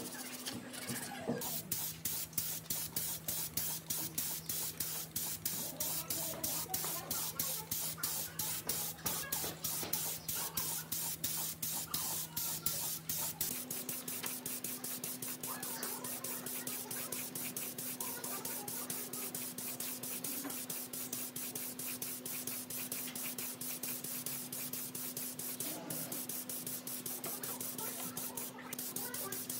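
Spray paint hissing onto an angle grinder's metal motor housing, with a rapid, even pulsing, after a little hand sanding of the housing at the start.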